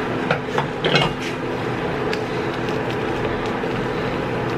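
Wooden chopsticks clicking and scraping against a nonstick wok while stirring a pan of instant noodles. A few sharp clicks come in the first second or two, over a steady hum.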